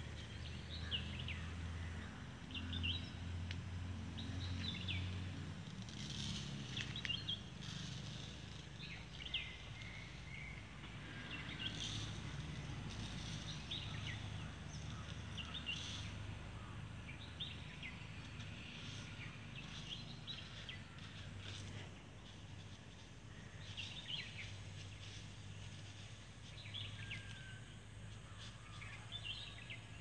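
Small birds chirping in short, scattered calls over a low steady hum, with a few brief rustles or clicks.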